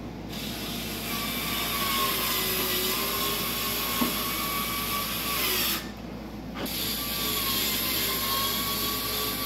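Cordless screw gun driving screws up through a front splitter into a car's bumper. One long run of the motor that falls in pitch and stops about six seconds in, then a second run starting a moment later.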